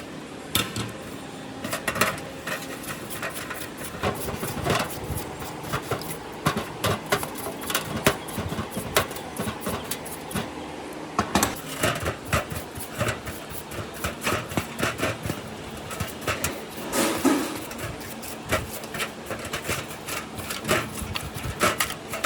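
Irregular clicks, taps and knocks of hand tools on small metal parts, with no motor running.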